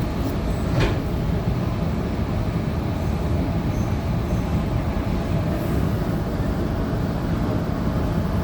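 Sydney Trains Tangara electric multiple unit heard from inside the carriage while running: a steady low rumble of wheels on track, with one short click about a second in.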